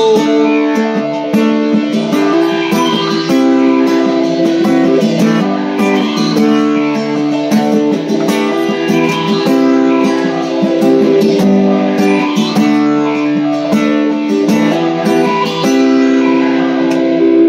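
Acoustic guitar strummed in an instrumental break, steady chords changing every second or two, with no singing.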